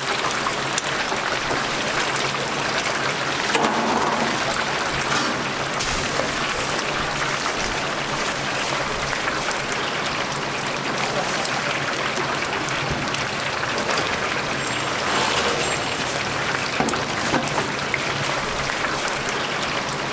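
Chicken pieces deep-frying in a large tray fryer of hot oil: a steady, dense sizzle and crackle, with a few short clicks.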